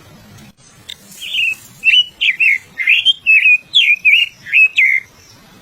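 A small bird singing a quick series of about ten clear whistled notes, each sliding up or down in pitch.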